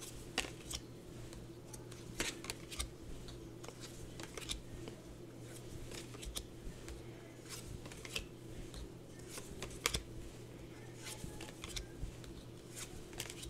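Tarot cards being flipped and slid off two decks one after another, giving scattered light snaps and rustles over a faint steady hum.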